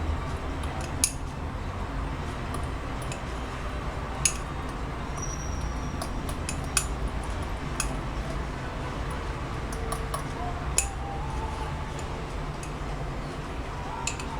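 Utensil stirring cake batter in a bowl, with a few separate clinks of the utensil against the bowl over a steady low background rumble.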